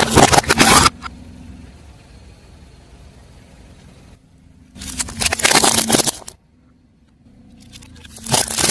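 Car tyre rolling over and crushing crunchy objects: loud bursts of crackling and snapping at the start, again about five seconds in, and once more near the end, with the car's engine running low in between.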